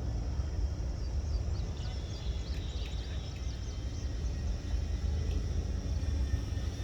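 Low steady rumble on the microphone, under the faint drone of an electric RC airplane's motor and propeller flying at a distance at low throttle. A few short high bird chirps come about two to three seconds in.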